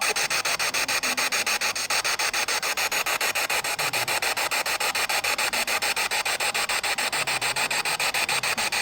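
Spirit box scanning through radio frequencies: a steady hiss of static chopped into rapid, evenly spaced pulses.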